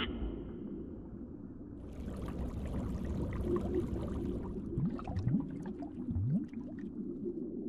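Underwater sound effects: a steady low rumble of water with bubbling and gurgling. A short sharp swish comes right at the start, and a few short rising bloops come past the middle.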